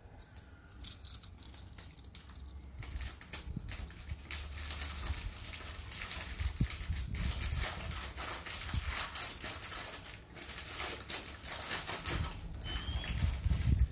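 Stack of stone-studded glass bangles clinking and rattling against each other as they are picked up and turned in the hand: a rapid run of small sharp clicks that gets busier after a few seconds, with some handling rustle.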